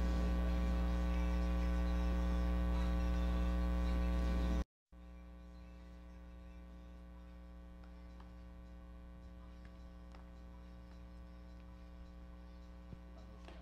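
Steady electrical mains hum, a low buzz with a ladder of evenly spaced overtones on the audio feed. About four and a half seconds in it cuts out abruptly for a split second, then comes back much fainter.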